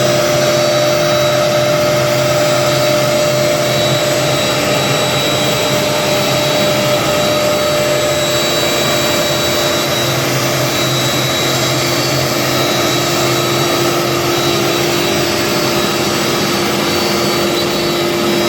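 CNC router spindle running steadily as its bit mills MDF cabinet fronts, a constant whine over the even noise of the cut.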